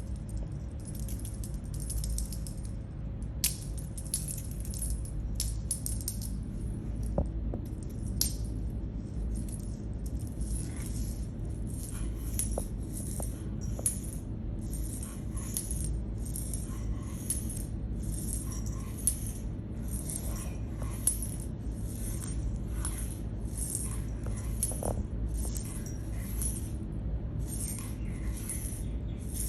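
Background music with a steady, evenly paced rattling shaker beat over a low hum, with a few sharp knocks in the first several seconds.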